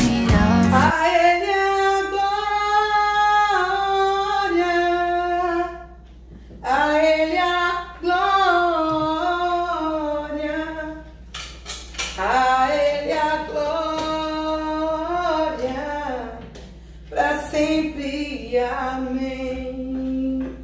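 Background music: a woman singing long, held notes in phrases a few seconds apart.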